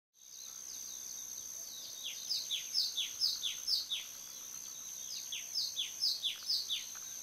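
A songbird singing two phrases of repeated falling whistled notes, about two notes a second, over a steady high-pitched hum of outdoor ambience.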